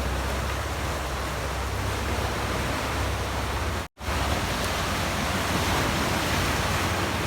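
Steady rushing of flowing water over rocks, with a heavy low rumble underneath; the sound drops out for an instant just before the middle and comes straight back.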